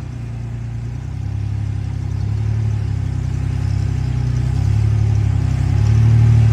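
Rock-crawling buggy's V6 engine pulling steadily under load, slowly growing louder as it climbs.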